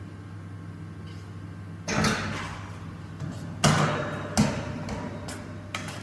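Steel parts banging and clanking, with three loud bangs about two, three and a half and four and a half seconds in and lighter knocks between, over a steady low machine hum.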